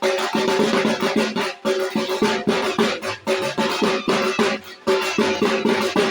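Music led by fast, steady drumming, with a held low tone underneath.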